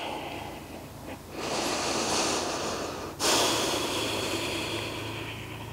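A woman breathing deeply and audibly close to the microphone while holding a yoga lunge: two long breaths, the second starting about three seconds in.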